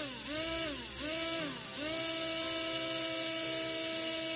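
Small electric motor run from a 12 V adapter, whining as it spins up and winds down three times in quick succession, then running at a steady pitch.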